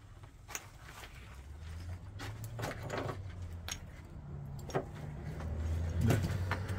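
A low steady hum that swells twice, with scattered sharp clicks and knocks over it; the loudest knock comes about six seconds in.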